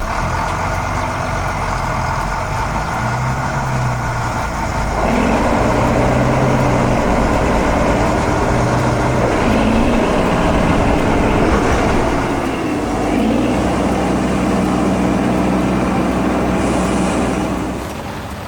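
Heavy construction-vehicle engine running steadily, rising in level about five seconds in, with short upward swells in pitch twice, then fading near the end.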